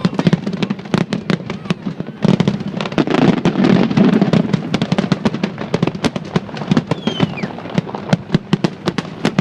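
Fireworks going off in a rapid barrage of sharp bangs and crackles. About two seconds in the bangs merge into a dense, continuous burst lasting two to three seconds, then thin back out to separate cracks.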